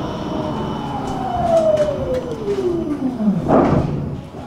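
Electric tram decelerating to a stop, the whine of its traction motors falling steadily in pitch as it brakes, over the running noise of the car. Near the end a short burst of noise as it comes to a halt.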